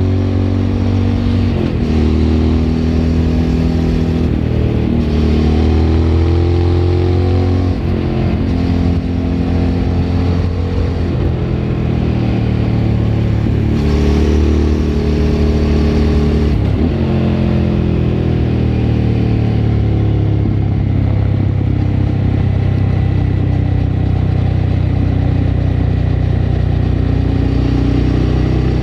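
Suzuki V-Strom 1000's V-twin engine through a Remus aftermarket exhaust, heard onboard under way. It pulls up through the gears, its pitch rising and then dropping sharply at each of about six shifts. In the second half it settles into a steadier, lower-pitched cruise.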